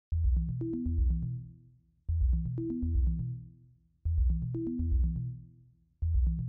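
Electronic intro music: the same short phrase of deep bass notes, sharp drum hits and two held tones, starting every two seconds and fading out before each repeat.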